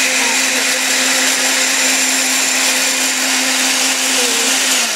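Countertop blender with a glass jar running steadily on its 'drink and crush' setting, churning a liquid mix of milk and strawberries; right at the end it is switched off and the motor hum starts falling in pitch as it spins down.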